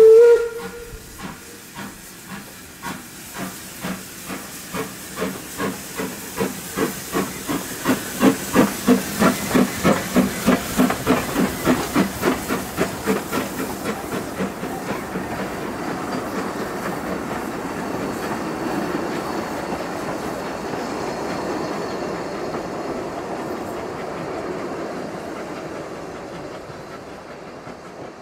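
Isle of Man Steam Railway 2-4-0 tank locomotive pulling a train away: the tail of its whistle at the very start, then exhaust beats that quicken and grow louder to about two or three a second, giving way to a steady rolling sound of the train that fades near the end.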